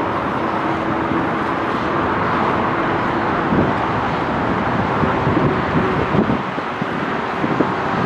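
Jet engines of an Airbus A320-family airliner landing: a steady, loud rushing noise with a faint steady hum in it.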